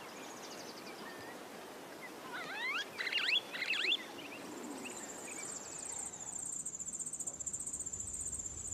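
Outdoor ambience of insects trilling, with a steady high, pulsing cricket-like trill setting in about halfway through. A few quick rising chirps come between about two and four seconds in.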